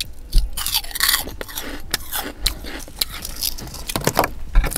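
Biting and chewing crunchy Orion Turtle Chips, light layered sweet-corn chips, eaten close to the microphone: a quick run of crisp crackles and crunches.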